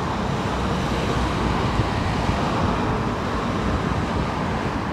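Steady, even rumbling background noise with no separate events.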